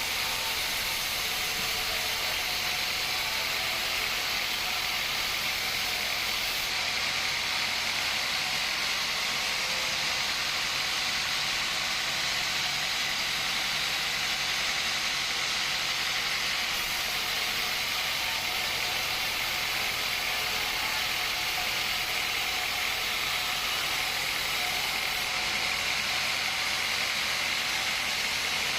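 Sawmill machinery running steadily, a constant hissing whir with no breaks or separate strikes.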